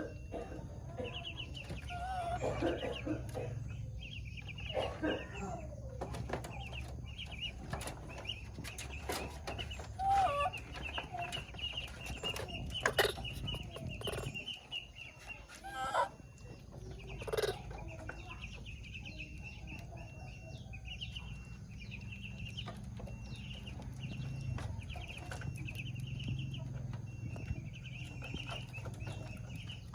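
Baby monkey's high whistling calls for its mother, short and scattered, with chickens clucking and a steady high trill that repeats again and again.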